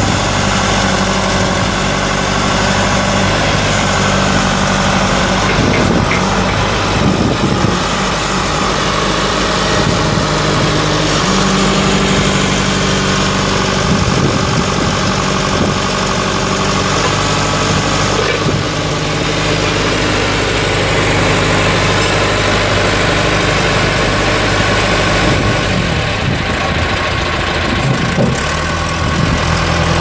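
John Deere 410C backhoe loader's 4.5-litre four-cylinder diesel engine running steadily, its note stepping up and down in pitch several times.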